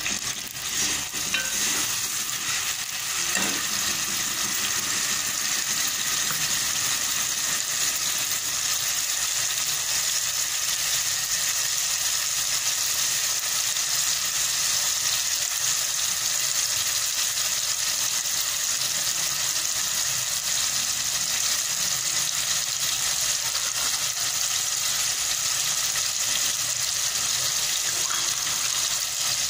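Pounded onions frying in hot cooking oil in a pot, a steady bubbling sizzle: the onions have just gone into the oil.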